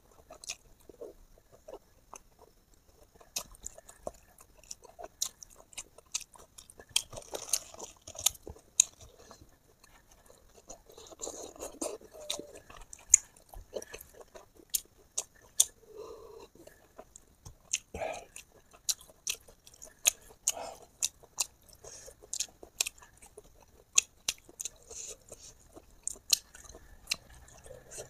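A person chewing food close to the microphone, with many sharp, irregular crunches and mouth clicks between softer wet chewing.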